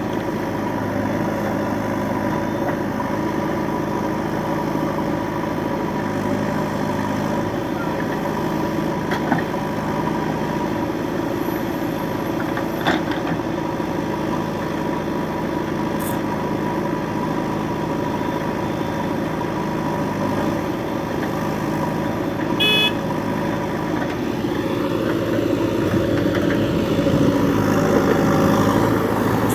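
Diesel engines of a JCB 3DX backhoe loader and tractors running steadily while mud is loaded, with a few sharp clanks. A short beep sounds about three-quarters of the way through, and the engine sound rises a little near the end.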